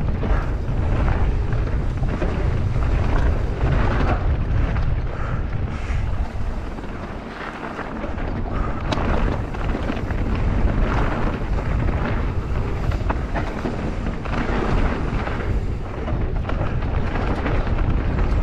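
Mountain bike ridden down a rough trail: wind buffeting the microphone as a heavy rumble, with the tyres and bike rattling and knocking over the ground throughout. It eases off briefly a little past a third of the way in.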